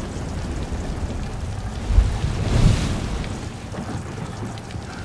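Storm at sea: steady rain and wind over a low rumble, swelling into a louder roll of thunder about two seconds in.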